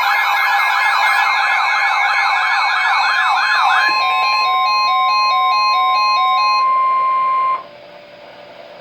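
Electronic weather-alert tones announcing a severe thunderstorm warning: a fast-warbling, siren-like tone over a steady high tone for about four seconds, then a stepping pattern of beeps while the steady tone holds. The tones cut off abruptly about seven and a half seconds in, leaving faint hiss.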